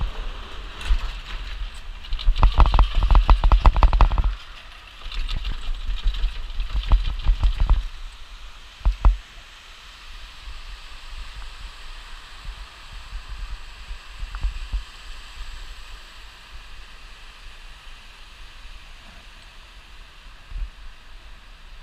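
Chairlift chair clattering over the roller sheaves of a lift tower, a quick run of clunks about two seconds in and another run a few seconds later, then a single knock. After that comes a steady hiss of wind and the rushing mountain stream below.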